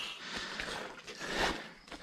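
A man breathing hard through his nose and mouth while he scrambles through mud and branches, with footsteps and rustling. There is a strong breathy puff about a second and a half in.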